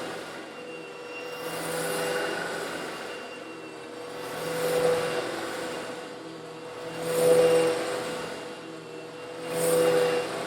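Eureka vacuum cleaner running with a steady motor whine while sucking up coarse stone granules, the gritty hiss and rattle swelling louder about every two and a half seconds, four times.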